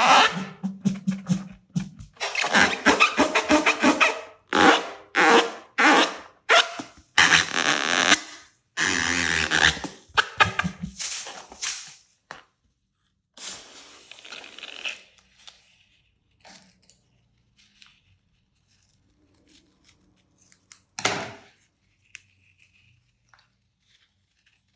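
Slime being squished and kneaded by hand: quick irregular squelches and air-pocket pops for about twelve seconds, then only now and then, with one more short squelch near the end.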